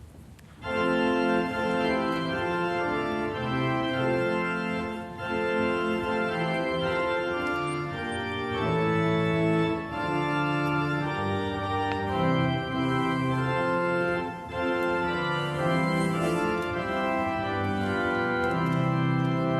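Church organ playing sustained chords, a hymn introduction, starting under a second in.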